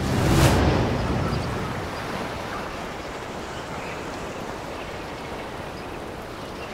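A short rushing swell about half a second in, then a steady rushing noise of wind and sea surf that slowly fades.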